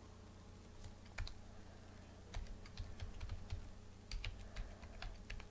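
Typing on a computer keyboard: a single keystroke about a second in, then an irregular run of quick keystrokes from about two and a half seconds in, over a faint steady hum.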